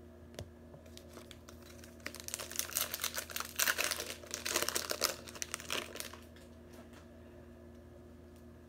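Trading-card pack wrapper crinkling as it is opened, a dense flurry of crackles from about two to six seconds in, then quieter.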